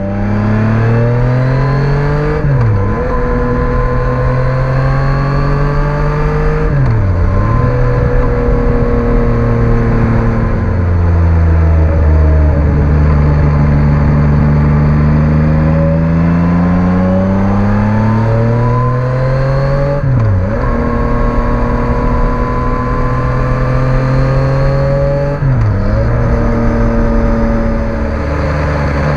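Yamaha MT-09 gen 3's three-cylinder engine through an SC Project STR-1 exhaust, accelerating while being ridden: the pitch climbs and drops suddenly four times as the rider shifts gears, with a steadier, lower stretch of cruising in the middle.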